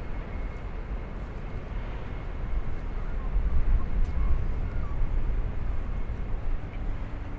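City park ambience made up mostly of a low, uneven rumble, swelling around the middle.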